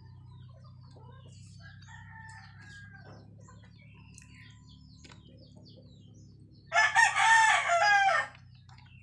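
A rooster crowing once, loud, lasting about a second and a half near the end, after a fainter, more distant call about two seconds in.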